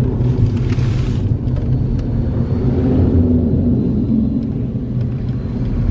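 Steady low road and engine rumble inside a moving car's cabin, with a brief rush of air about half a second in. A large farm tractor passes the other way about three to four seconds in, adding a faint steady engine tone.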